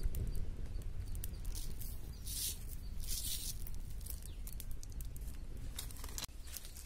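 Salt sprinkled by hand over meat and spices in a pot of water, heard as two short hissing patters, a little over two and three seconds in, over a low rumble, with a few sharp clicks near the end.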